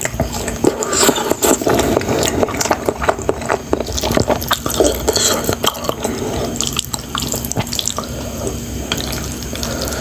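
Wet chewing and slurping of saucy noodles: many small, irregular smacks and squelches, busiest in the first few seconds and thinning out later.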